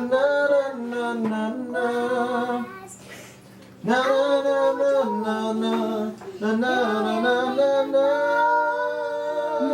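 A woman singing a wordless "na na na" tune, unaccompanied, with a short break about three seconds in.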